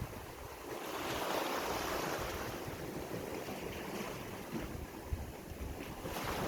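Sea waves washing onto the shore: one wave swells about a second in and slowly fades, and another builds near the end. Wind buffets the microphone with an uneven low rumble.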